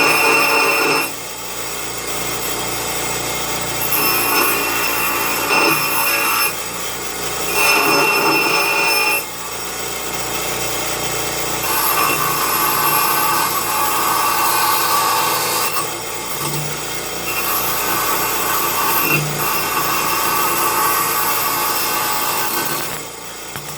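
Power tool running against a workpiece in stretches of a few seconds, stopping and starting, with a steady high whine over a rasping noise.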